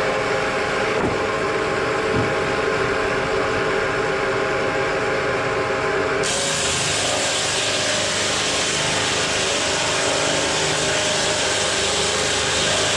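Sawmill woodworking machinery running steadily with a held hum. About six seconds in the sound switches abruptly to a broader, hissier machine noise.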